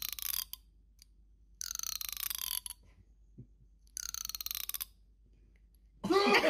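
Domestic cat retching: three rattling, gagging heaves about a second long each, with short silences between them. The cat is on the verge of throwing up.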